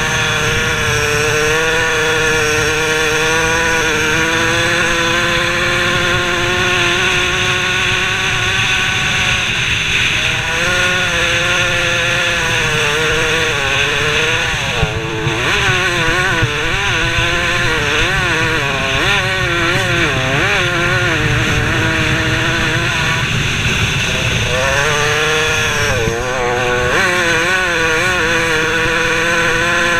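125cc-class motocross bike engine running at high revs, heard from the rider's helmet camera with wind rumbling on the microphone. The engine note holds steady for the first several seconds, then rises and falls repeatedly through the middle, with short dips about halfway and again near the end.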